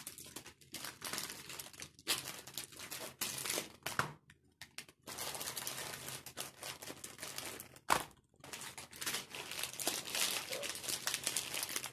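Plastic food packaging crinkling and rustling as packaged groceries are picked up, wiped with a cloth and set down on a table, with one sharp knock about eight seconds in.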